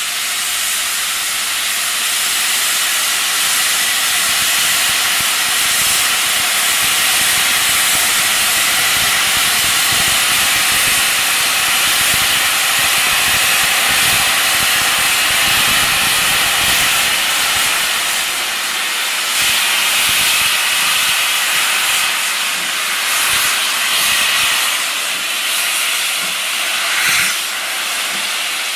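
BR Standard Class 7 Pacific steam locomotive 70000 Britannia with its cylinder drain cocks open, blowing out a loud, steady hiss of steam as it starts to move off.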